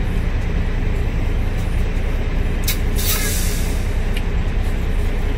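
Truck engine idling, a steady low rumble heard inside the cab, with a short hiss and a couple of clicks about three seconds in.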